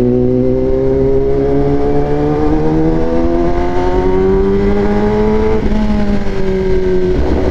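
Kawasaki ZX-10R inline-four running through a very loud four-into-one aftermarket exhaust with no dB killer fitted, ridden under light acceleration. The engine note climbs slowly for about five seconds, then drops suddenly and holds steady at a lower pitch.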